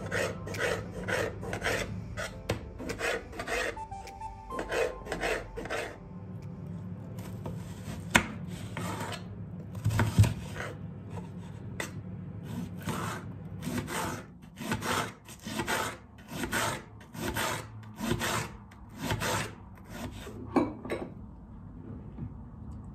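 Knife slicing through tomatoes and then an onion down onto a plate, a steady run of scraping strokes about two a second, with a louder knock about ten seconds in.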